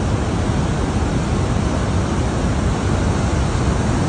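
Rough storm surf washing in over the beach: a steady, loud rushing of breaking waves and churning water.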